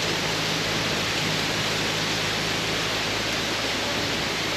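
Steady rush of falling and flowing water, an even hiss that does not change.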